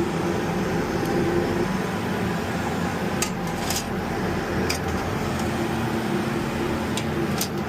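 Steady running noise of an oil-fired steam boiler's burner, with a held low tone under it. A few sharp clicks come about three to five seconds in and again near the end.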